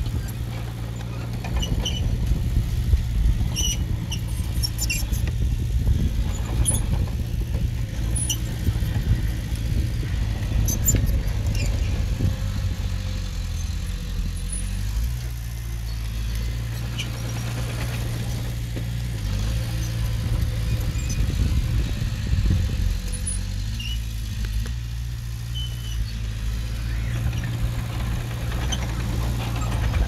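Diesel engine of earthmoving machinery running steadily, its pitch shifting slightly a few times as the load changes, with scattered short metallic squeaks and clinks.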